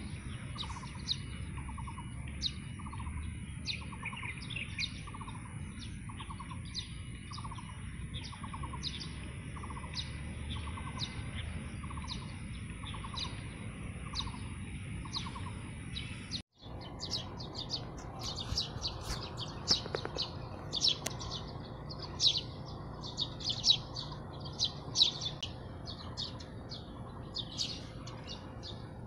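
Morning birdsong: many short, high chirps repeating over and over, with a thin high steady tone under the first half. About halfway through, the sound drops out for an instant, and after that the chirping is denser and louder.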